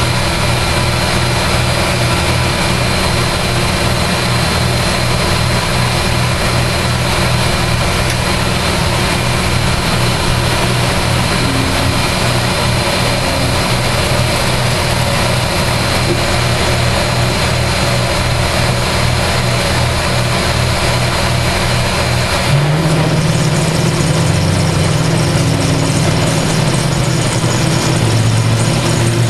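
CNC-converted mill/drill running, its end mill cutting a slot into a cast iron brake rotor: a steady machine whir with several fixed tones. About two-thirds of the way through the sound shifts, with a deeper hum joining.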